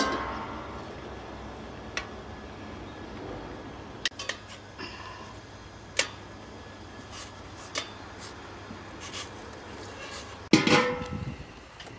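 Metal tongs clinking against a stainless steel pot and a steel plate as boiled potatoes are lifted out one at a time. Single sharp clinks come every second or two, some with a brief ring. A louder clatter with a ringing tone comes near the end.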